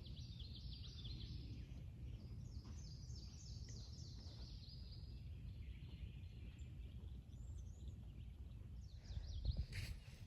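A songbird singing a quick run of high chirping notes for the first few seconds, over a steady low rumble. A few sharp knocks sound near the end.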